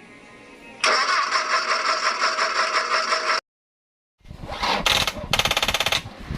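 Isuzu 4HL1 diesel engine being cranked by its starter without catching, a loud, evenly pulsing sound that cuts off suddenly. After a short gap it cranks again, with a few sharp knocks and a fast rattle near the end. It is the cranks-but-won't-start fault.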